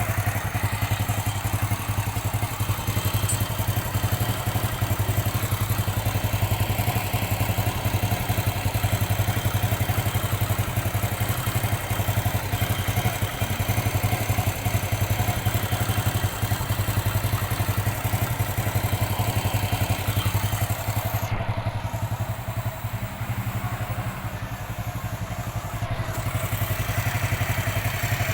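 Motorcycle engine, over twenty years old, idling steadily with a fast, even putter. Its centre crankcase gasket has been redone and is no longer seeping oil.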